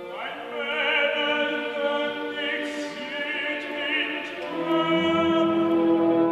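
Operatic tenor singing with orchestra, his voice wavering with vibrato. About four and a half seconds in, the voice gives way to steady held orchestral chords.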